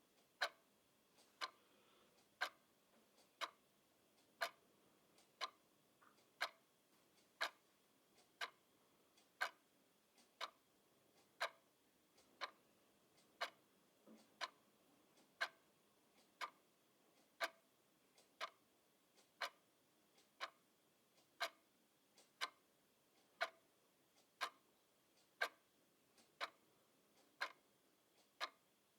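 Clock ticking steadily, about two ticks a second, a louder tick alternating with a softer tock.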